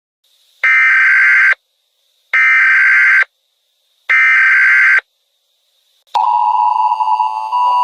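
Emergency Alert System SAME header: three screeching data bursts, each about a second long and about a second apart. About six seconds in, the steady two-tone EAS attention signal starts and holds.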